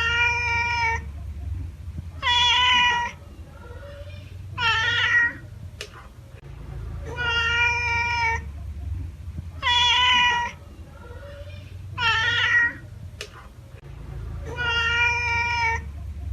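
A cat meowing over and over: seven long, drawn-out meows about every two and a half seconds, with a steady low rumble beneath.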